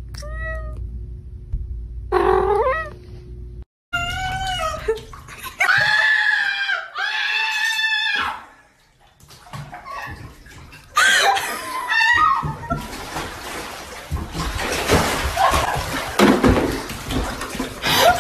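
Cat meowing and yowling in a string of long, drawn-out calls, with a rushing noise under shorter calls in the last few seconds.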